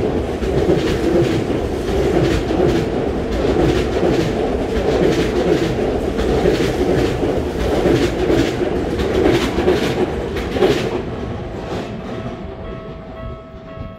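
Y500 series electric commuter train running through the station at speed: a loud rush of wheels and body with a rhythmic clatter of wheels over rail joints, fading away after about eleven seconds as the train leaves. As it fades, the steady tones of the level-crossing alarm come through.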